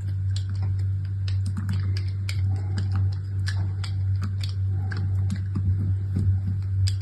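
Soap packaging being unwrapped by hand: dense, irregular crinkles and clicks of the wrapper. Under it runs a steady low hum.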